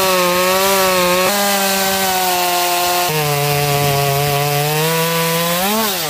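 Two-stroke chainsaw cutting down through an upright log under load; about three seconds in the engine pitch drops lower as it works harder in the cut. Near the end the revs rise as the cut-off slab falls free, then the sound cuts off suddenly. The short-toothed chain has hit dirt and cuts slow and rough.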